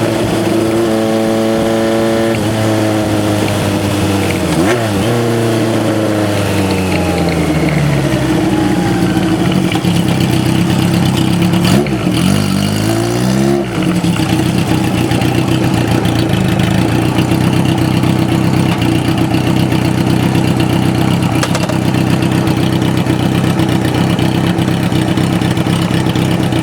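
Kawasaki 750RS (Z2) air-cooled inline-four running through an exhaust with machine-bent pipes. It is revved, then winds down slowly over several seconds, gets one quick blip of the throttle, and then idles steadily.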